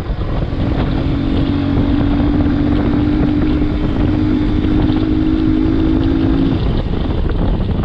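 Motorcycle riding at steady speed, with heavy wind rush on the helmet microphone. A steady engine drone holds one pitch for about six seconds and stops near the end.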